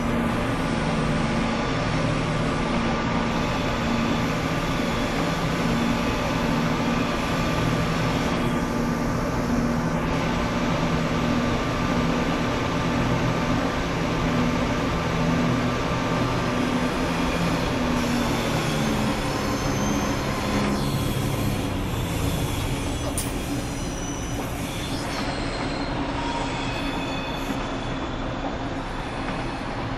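Class 172 Turbostar diesel multiple unit running, a steady engine and transmission drone whose pitch falls between about 18 and 22 seconds in, with short high wheel squeals in the second half.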